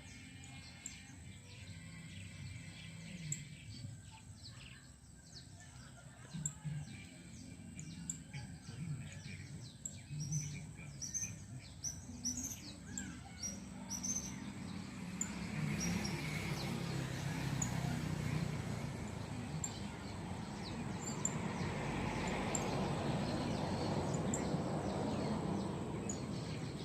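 Birds chirping in short, high calls, with a steady noisy background that grows louder about halfway through.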